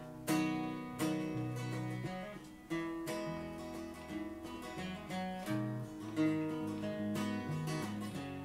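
Acoustic guitar strumming the instrumental intro of a song, a new chord about once a second, with an electric bass guitar playing along underneath.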